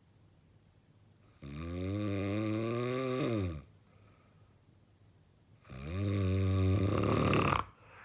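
A person snoring heavily: two long snores about four seconds apart, each a low buzzing tone of about two seconds that bends up in pitch as it starts. The second snore ends in a rattling burst.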